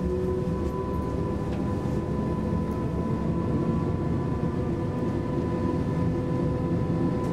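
Inside an ABB X10p electric railcar moving along a platform: a steady low rumble of the wheels on the rails, with a steady whine from the traction equipment.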